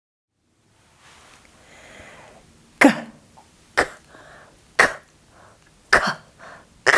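A woman pronouncing a single voiceless consonant sound again and again, as in a Spanish letter-sound drill. It comes as short, sharp puffs about once a second, starting about three seconds in.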